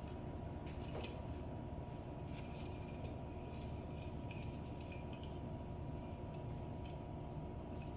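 Scattered light metallic clinks and clicks over a steady low hum with a faint steady tone.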